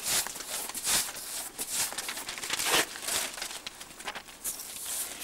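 A paste brush scrubbing wallpaper paste onto a rough wall in irregular scraping strokes, with paper crinkling as a poster is handled and pressed on.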